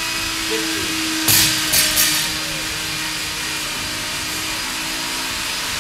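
A 15 kg barbell with 10 lb bumper plates dropped onto a rubber gym floor a little over a second in, landing with a bang and bouncing twice. A steady rushing noise runs underneath.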